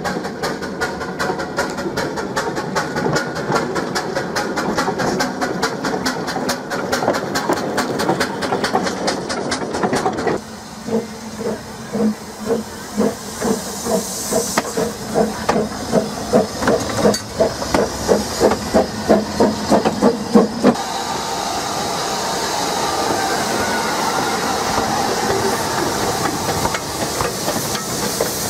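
Small narrow-gauge steam locomotives: first a rapid, even ticking as a tiny engine runs along the track; then, about ten seconds in, a locomotive pulling away with distinct exhaust chuffs that quicken; then, from about twenty seconds in, a steady hiss of escaping steam.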